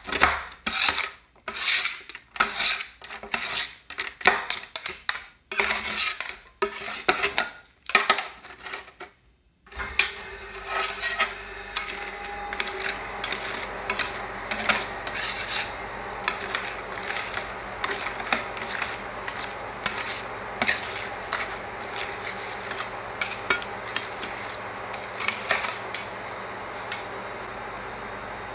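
Two steel spatulas working Cheetos into pink ice cream base on a frozen steel cold plate: quick, sharp clacks of the blades chopping against the plate for about the first nine seconds. After a brief pause, softer, continuous scraping as the mixture is spread across the plate, over a faint steady low hum.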